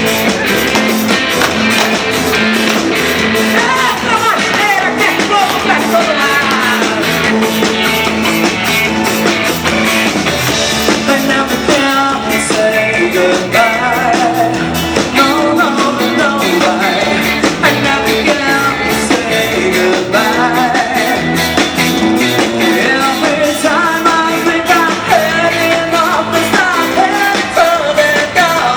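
Live band playing an up-tempo rock-style song over a loud PA, with a steady fast drum beat and a melody line on top.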